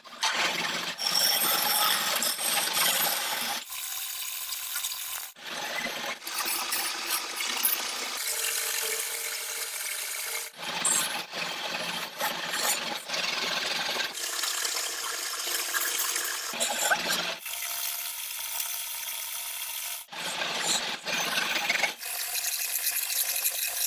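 A lathe tool cutting into spinning wood, a steady hissing cut that starts and stops abruptly every one to three seconds.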